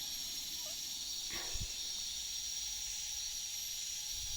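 Steady high-pitched insect chorus of forest insects such as cicadas or crickets, an unbroken hiss with a shrill constant tone, and a faint short call about a second and a half in.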